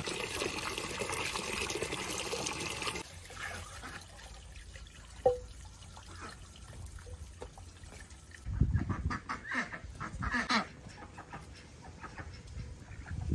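Water running, stopping about three seconds in, then a single sharp knock. A chicken clucks in short calls near the end.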